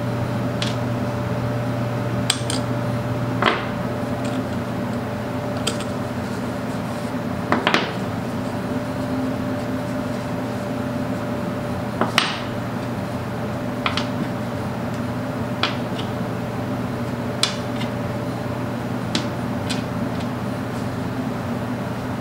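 Irregular metallic clinks and taps, about a dozen, as tools and small overdrive parts are handled and set down on the workbench, the sharpest about halfway through. A steady background hum runs under them.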